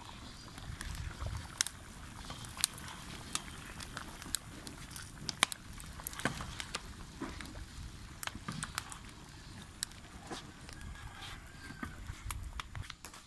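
Open log fire crackling under pots of boiling stew, with irregular sharp pops and snaps over a low rumble.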